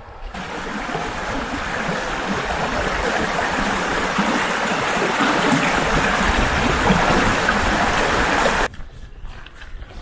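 Swollen moorland stream rushing over rocks: a steady, loud wash of water that builds over the first second and cuts off abruptly near the end.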